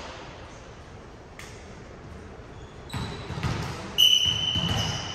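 Gym sounds of an indoor volleyball game: a few dull thuds of the ball and feet on the court over the last two seconds, and about a second before the end a shrill whistle blast, the loudest sound, held steady.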